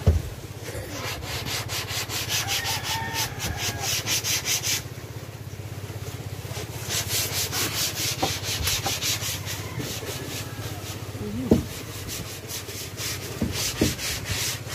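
Hand sanding of a wooden boat's plywood hull with sandpaper: fast back-and-forth scratching strokes, about five a second, in two spells with a pause between. A couple of sharp knocks stand out, one at the very start and one about eleven seconds in.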